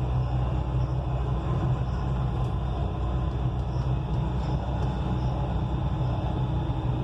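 Dubai Metro train in motion, heard from inside the car: a steady low rumble of the running train.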